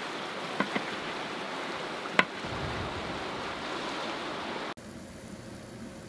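Steady rush of a fast river, with knife cuts knocking on a plastic cutting board: two light knocks about half a second in and a sharper one a little after two seconds. The rush cuts off suddenly about three-quarters of the way through, leaving a quieter steady hum.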